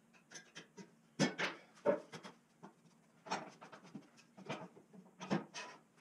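Irregular knocks and scrapes of square steel tubing being handled on a workbench, with the loudest clanks about a second and two seconds in and again near the end.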